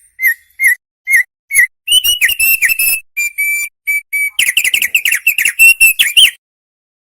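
Opior songbird singing. Five short whistled notes come about half a second apart, then a fast, loud run of whistles and chattering trills breaks off abruptly a little after six seconds.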